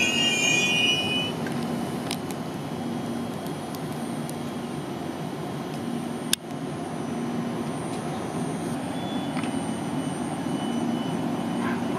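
PKP Intercity passenger train at a station platform: a high wheel squeal dies away about a second in, then a steady low rumble and hum from the train. One sharp click about six seconds in.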